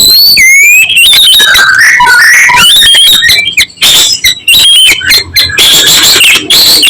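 White-rumped shama singing: a loud, varied run of whistled notes that slide up and down, with a stretch of sharp clicking notes in the middle.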